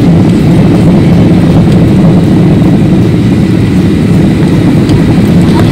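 Steady, loud rumble of a Boeing 737's jet engines and rushing air, heard inside the passenger cabin beside the wing during the approach to landing.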